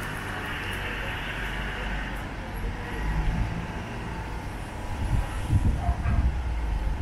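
Street traffic: a motor vehicle running close by. Its hiss eases off after a couple of seconds and its low rumble swells near the end.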